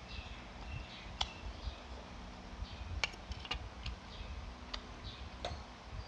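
Eating sounds of someone chewing a mouthful of noodle soup: about five sharp, scattered clicks, with faint bird chirps in the background.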